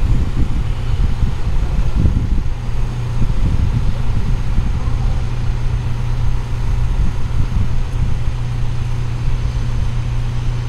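Mobile crane's diesel engine running steadily under load while the crane lifts a container module, a constant low drone.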